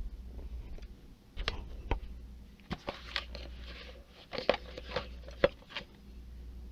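Handling noise as a ceramic plate is taken out of its round box among the dividers: scattered light clicks and knocks, with brief rustling around the middle.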